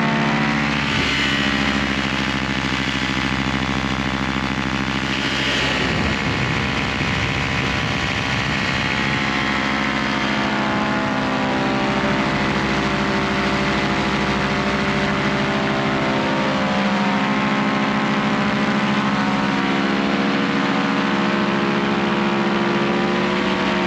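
Top 80 single-cylinder two-stroke paramotor engine running in flight, driving the propeller with a steady drone. Its pitch shifts a few times as the throttle is changed, around a quarter and half of the way in.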